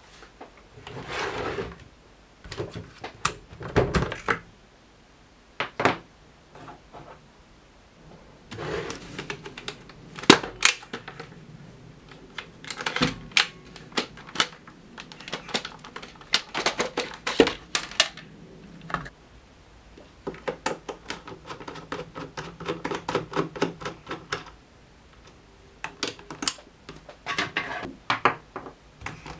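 Hard plastic clicks, snaps and knocks from a Dyson DC62 cordless handheld vacuum being handled and taken apart: the clear dust bin is unlatched and pulled off, and the parts are set down on a wooden bench. The clicks come in irregular clusters with short pauses between.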